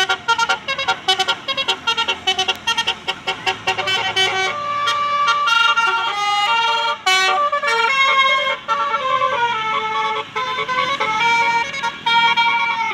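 Bus 'telolet' multi-tone air horn playing a melody: quick staccato toots for the first few seconds, then longer held notes changing pitch.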